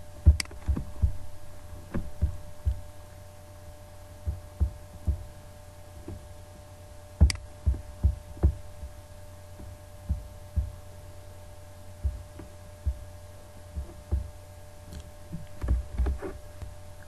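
Steady electrical hum with a dozen or so irregular soft thumps and clicks from a computer mouse and desk, the sharpest about seven seconds in.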